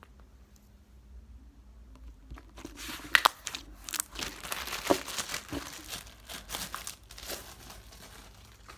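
Plastic bag crinkling and crackling as it is handled, with a few sharp clicks among the rustle, starting about two and a half seconds in.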